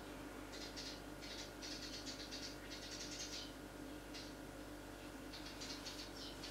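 Eurasian tree sparrows chirping in quick runs of short, high notes, several runs over a few seconds, over a faint steady hum.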